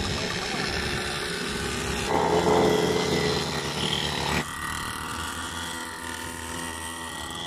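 Small 49cc two-stroke pocket bike engines running with a high buzzing tone as the bikes ride off. The sound jumps abruptly about two seconds in and again about halfway through, and it is loudest between those two jumps.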